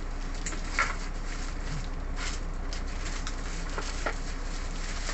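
Faint scattered rustles and light clicks of small items and packaging being handled, a slightly louder tap about a second in, over a steady low background hum.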